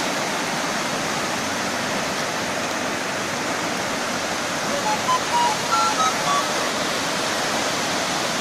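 A river in flood rushing over rocks in white-water rapids: a steady, full roar of water. About five seconds in, a few short whistled notes sound over it.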